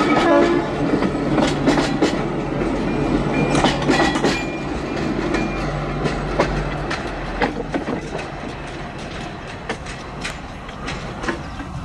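Narrow-gauge diesel locomotive TU47 and its coach passing close and pulling away, the engine running steadily while the wheels click over the rail joints. The train slowly fades as it recedes.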